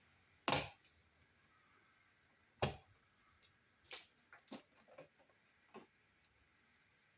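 Hand tools working on electrical wiring make a string of sharp, irregular clicks and snaps, the loudest about half a second in and a second strong one under three seconds in.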